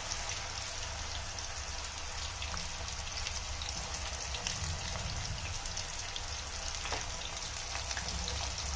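Crinkle-cut raw banana slices deep-frying in a steel kadhai of hot oil: a steady sizzle with scattered small crackles.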